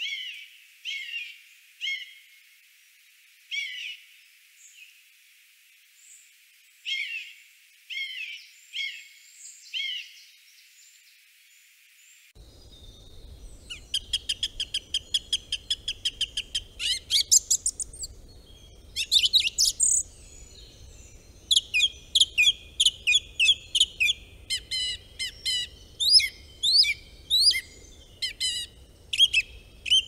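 For about the first twelve seconds, a bird gives short, high, clear calls roughly once a second, with pauses. After that, a croaking cisticola sings in bursts of fast, dry, repeated notes, each run lasting one to three seconds.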